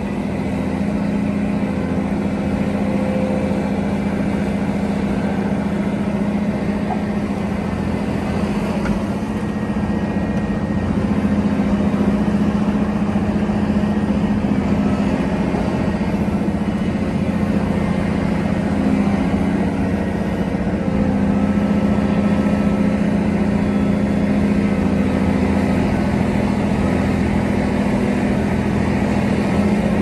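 Volvo EC700 large crawler excavator's diesel engine running steadily, with a deep drone. Its level rises about 11 seconds in and again about 21 seconds in.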